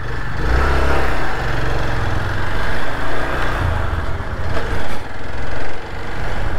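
Hero Xpulse 200 single-cylinder motorcycle engine pulling away from a standstill and riding off at low speed, the throttle opening and easing off a few times.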